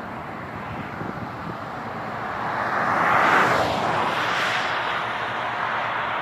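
Highway traffic noise, with one vehicle passing close by: a rush that swells to its loudest about three seconds in, then fades back to the steady traffic hum.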